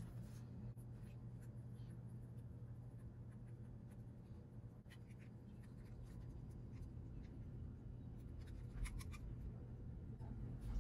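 Faint scratching and small clicks of a precision hex driver turning a tiny screw into a plastic mount on a 1/24-scale RC crawler, with a few sharper clicks near the end, over a steady low hum.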